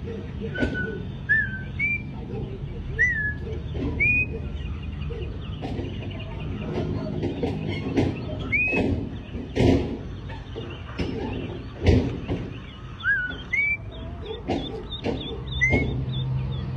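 A flock of ducklings peeping: scattered short rising chirps, thickening into rapid high peeping near the end. A couple of sharp knocks stand out in the middle.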